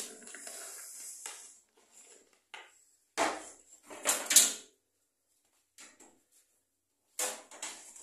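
Handling noises: scattered knocks and clatters of hard objects being moved or set down, loudest a little after three seconds and around four seconds in, with a faint hiss at the start.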